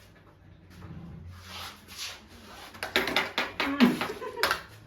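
Kitchen utensils and bowls being handled: quiet rustling, then a cluster of sharp knocks and clatter about three seconds in.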